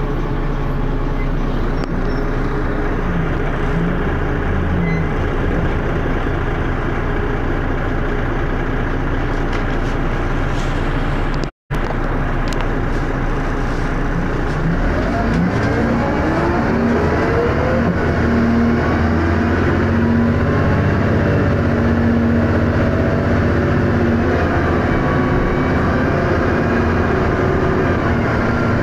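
Dennis Arrow bus engine running steadily, with the sound cutting out for a split second a little before halfway. In the second half the engine pitch rises through several climbs as the bus pulls away and accelerates through its gears, then holds a steady drone.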